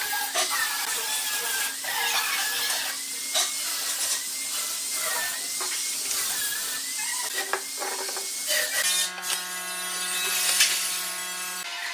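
A small electric motor whining steadily, its pitch wavering up and down, with scattered clicks and knocks of wood being handled. A little before 9 s it switches abruptly to a deeper, steadier machine hum.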